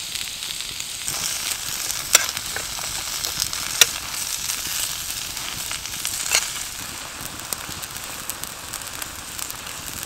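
Sliced carrots and courgette sizzling in hot coconut oil in a pan over a wood fire: a steady frying hiss with a few sharp pops about two, four and six seconds in.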